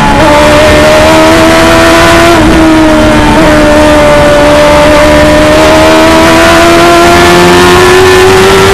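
The 1000cc Stohr F1000 race car's engine heard from onboard, loud: a quick gear change just at the start, then a single steady engine note that climbs slowly in pitch as the car accelerates in gear.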